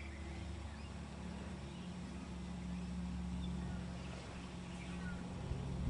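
Low, steady mechanical hum with a few faint, brief high chirps over it.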